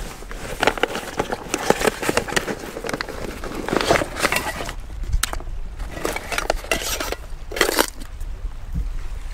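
Rustling and clicking of camping gear being handled as cooking starts, in uneven clusters with short lulls about five and eight seconds in.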